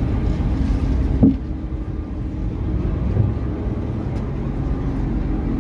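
A motor running steadily with a low rumble, and a single short knock about a second in.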